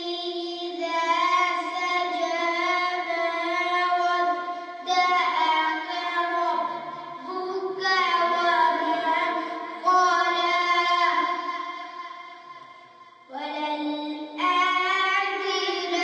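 A boy singing a Punjabi devotional song into a microphone, drawing out long held notes. The voice fades away about three-quarters of the way through, then comes back strongly on a new phrase.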